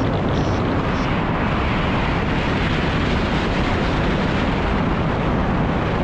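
Steady, loud wind rushing over the camera's microphone as the paraglider flies along the ridge.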